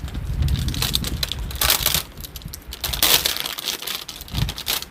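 Packaging being handled: irregular crinkling and crackling, with louder bursts about two and three seconds in, over a low wind rumble on the microphone.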